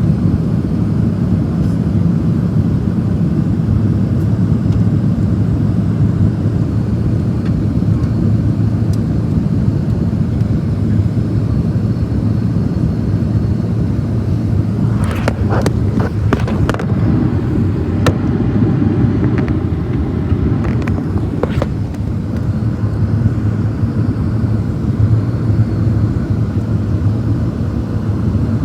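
Cabin noise of a Boeing 737-700 in flight: the steady low roar of its engines and the airflow past the fuselage. A handful of short sharp clicks or rattles come in a cluster about halfway through and again a few seconds later.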